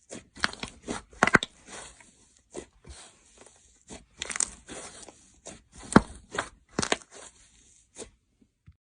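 Slime being pressed and worked by hand: a quick run of short, sticky crackling pops, two or three a second, that stops near the end.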